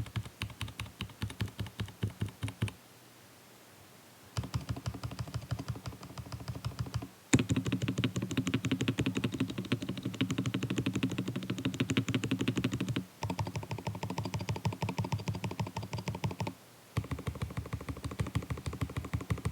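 Custom XD84 Pro mechanical keyboard with Gazzew Boba U4T tactile switches, its keys struck hard in fast runs of clicking keystrokes. The runs come in several blocks with short pauses between them, and the densest, loudest run is in the middle.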